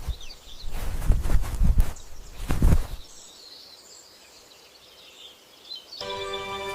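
Birds chirping faintly over an outdoor nature ambience, with several low, heavy thuds in the first three seconds. Music with sustained tones comes in near the end.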